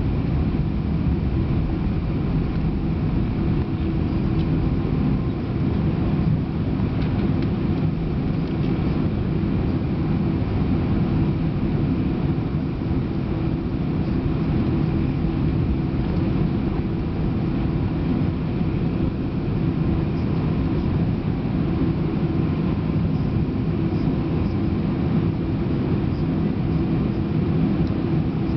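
Steady cabin noise of an Airbus A319 taxiing, heard inside the cabin by the wing: the jet engines run at idle under a constant low rumble, with a faint steady hum in it.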